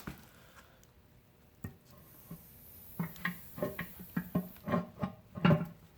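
A couple of faint clicks and knocks, then plucked guitar music starting about halfway, a run of short notes.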